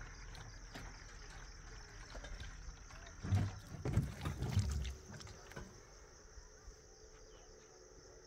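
A few dull thumps and knocks about three to five seconds in, over steady high cricket chirring and scattered light clicks.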